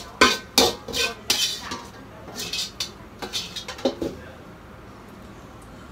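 Metal kitchen utensils clinking and knocking against a pan and dishes as a cook dishes up fried rice. It is a quick run of sharp clinks for about four seconds, then they stop.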